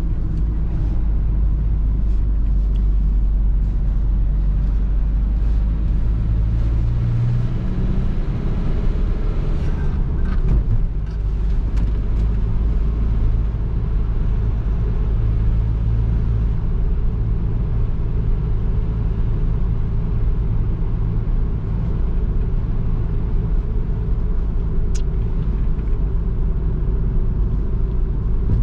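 Nissan NV200's 1.5 dCi four-cylinder diesel running steadily on the road with a constant low rumble. The engine note rises about seven seconds in, dips briefly around ten seconds, then settles into an even drone.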